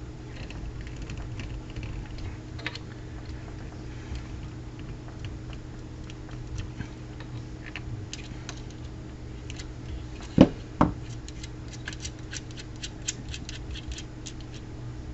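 Light clicks and taps of tools and a circuit board being handled on a workbench, with two louder knocks close together about ten seconds in, over a steady low hum.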